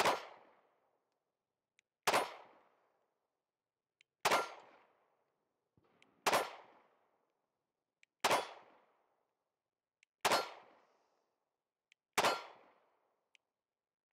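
Smith & Wesson Equalizer 9mm pistol fired in slow, evenly paced single shots about two seconds apart, seven in a row with an eighth right at the end, each shot followed by a short ring from the steel plate targets.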